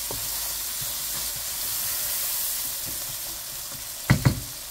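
Sliced onions and bay leaves sizzling as they fry in hot oil in a wok, stirred with a wooden spatula. Near the end come two sharp knocks in quick succession, the spatula tapped against the pan.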